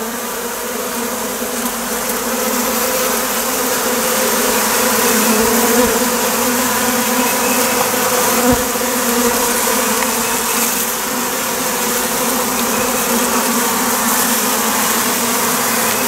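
Loud, steady buzzing of a large cluster of honey bees at close range, a colony disturbed by its comb being cut out.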